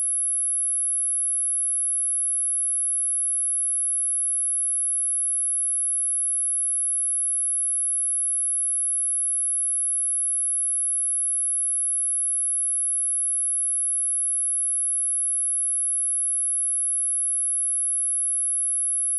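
A steady, continuous 10923 Hz sine-wave test tone, a single very high-pitched pure tone held at constant pitch and level.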